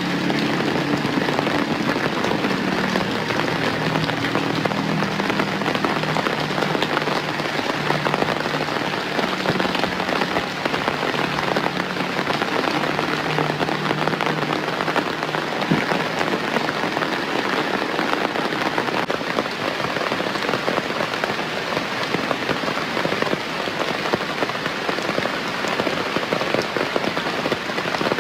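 Steady, heavy rain falling, a dense even patter of drops hitting surfaces.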